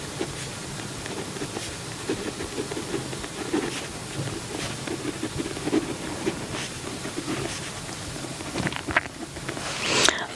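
Pen scratching on journal paper over a steady hiss, with scattered small clicks.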